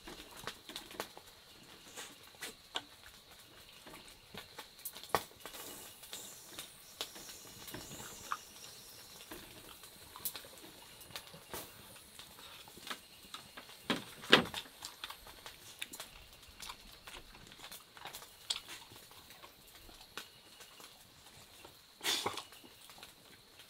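Small eating sounds: chopsticks clicking and tapping against a bamboo cup and a metal pot, with a dog chewing food from a basket, in many scattered short clicks and two louder knocks. A faint steady high tone runs underneath.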